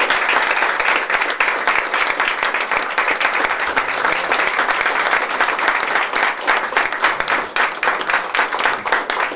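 Audience applauding, the dense clapping thinning into more separate claps in the last few seconds.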